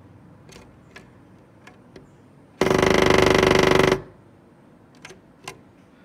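Black-rumped flameback woodpecker drumming its bill on the wooden window frame it clings to: one very rapid, loud drum roll lasting about a second and a half, starting a little under halfway in. A few faint single taps come before and after the roll.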